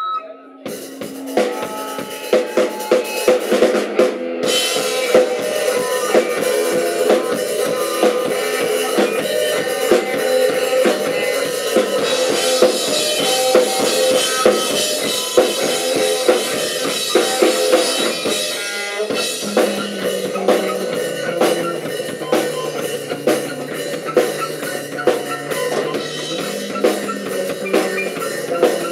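Live rock band playing: electric guitar, electric bass and a drum kit. The band comes in about half a second in and plays on, with the drums hitting hard throughout.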